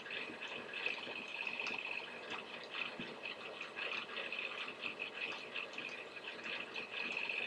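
Faint, irregular scratching and tapping from handwriting being entered on a computer, stroke by stroke, over a faint steady high whine.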